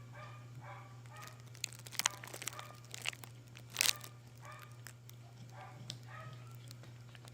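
Kitten crunching and chewing vegetable peels, with sharp crunches loudest in the middle. Short high-pitched sounds repeat several times at the start and again near the end, over a steady low hum.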